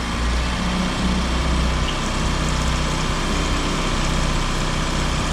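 Small four-stroke outboard engine (an 8 hp fitted with a 9.9 hp carburetor) idling steadily in a test tank just after starting, warming up.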